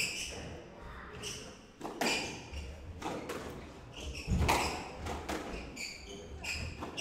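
Squash rally: the ball struck hard by rackets and cracking off the court walls about once a second, echoing in the court, with players' shoes squeaking and stepping on the wooden floor between shots. The loudest hit comes about four and a half seconds in.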